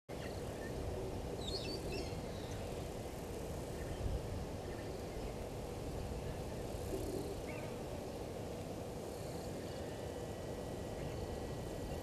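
Steady outdoor bush ambience with a low rumble, broken by a few brief, faint bird calls, the first about one and a half seconds in and another past the middle. A faint thin steady high tone comes in near the end.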